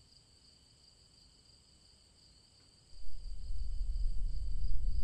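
Faint, steady high chirring of night insects such as crickets over near silence. About three seconds in, a deep low rumble swells up suddenly and keeps going, louder than the insects.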